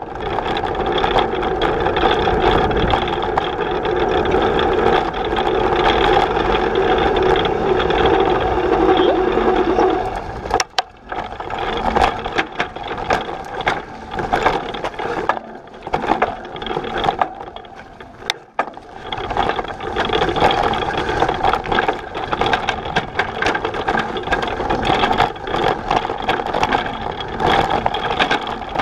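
Electric cargo bike riding along, its Shimano E6000 mid-drive motor humming steadily under the rattle of the bike's frame. The rattling turns into a dense, uneven clatter when it rolls onto a rough gravel path about eleven seconds in.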